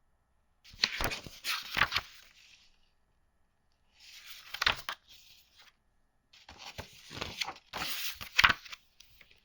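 Board game packaging being torn and crinkled by hand in three bursts, with sharp clicks among the rustling.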